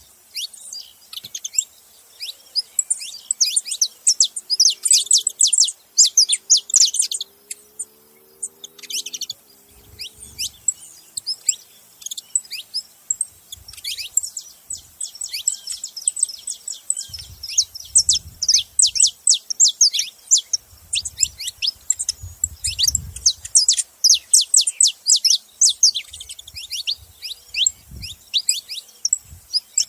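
Saffron finch chirping noisily: rapid runs of short, sharp, high chirps that come in bursts of several seconds with brief pauses between.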